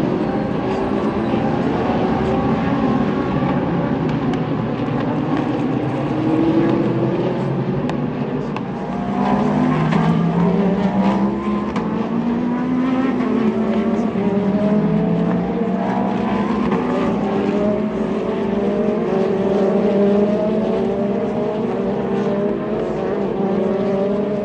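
IMSA sports-car race cars running at speed on the track, several engines climbing in pitch and dropping back as they shift up through the gears, with one passing louder about nine seconds in.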